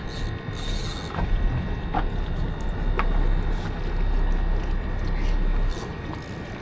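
Low rumbling wind buffeting the microphone on an open boat deck, swelling about a second in and dropping off suddenly near the end, with a short hiss early on and a few faint clicks.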